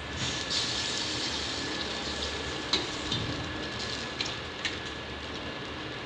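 Water sprinkled onto a nachni (finger-millet) bhakri on a hot tawa sizzling, loudest just after it lands and easing as it is spread over the top by hand. A few light clicks come through the hiss.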